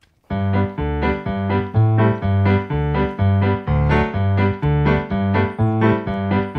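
Background music: a keyboard melody of short, evenly paced notes, about three a second, starting a moment in.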